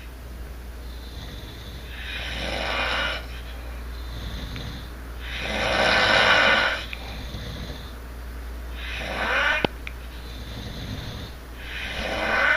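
A sleeper snoring in a regular rhythm: four loud snores about three seconds apart, each building up and then breaking off, with a softer hissing breath between them. A short click comes just after the third snore.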